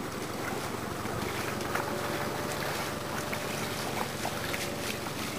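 Footsteps splashing and sloshing through shallow floodwater, many small splashes over a steady rush of wind on the microphone.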